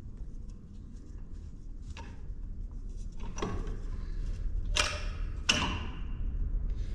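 Four sharp knocks and clacks of a plastic toolbox being handled and set against the metal silo unloader, the last two loudest, over a steady low rumble.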